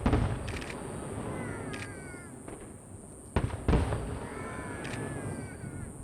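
Aerial fireworks shells bursting with loud booms, one right at the start and two close together about three and a half seconds in, each followed by a long rolling rumble. High falling cries come twice between the bursts.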